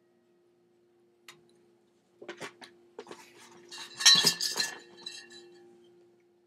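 Drinking glass clinking and knocking several times, the loudest clinks about four seconds in, ringing briefly.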